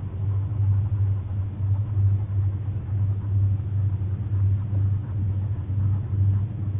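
A steady low rumble that swells and fades about once or twice a second.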